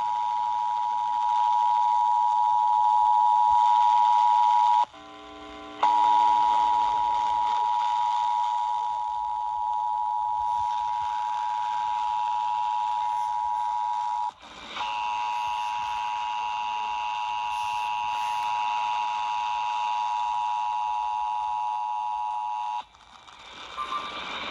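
Emergency Alert System attention signal: the steady two-tone alert, 853 Hz and 960 Hz sounding together. It drops out briefly about five seconds in and again about fourteen seconds in, then stops shortly before the end.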